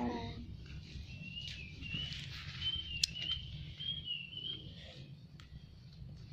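A bird chirping: a run of short, high chirps lasting about three seconds, over a low steady background rumble, with one sharp click in the middle.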